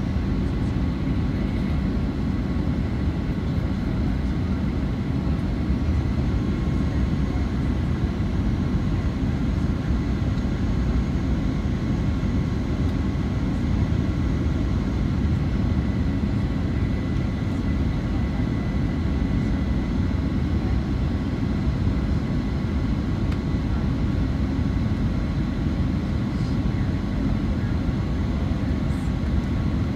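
Steady cabin noise of a Boeing 737-900 in flight, heard from inside the cabin. A constant low rush of airflow and engine sound, with a couple of faint steady tones above it.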